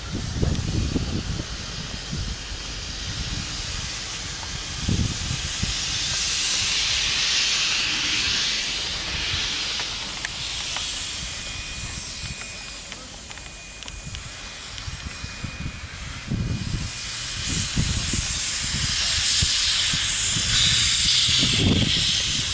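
Steam locomotive letting off steam: a loud hiss that swells about a quarter of the way in and again from about three-quarters of the way through, over irregular low rumbling.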